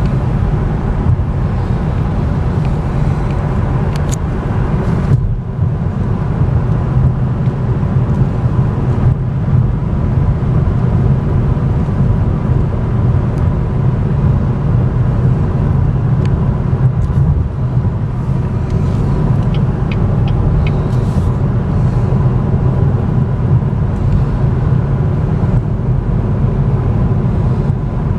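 Steady road and tyre rumble heard inside the cabin of a 2014 Cadillac ELR while it is driven, with a brief dip about five seconds in.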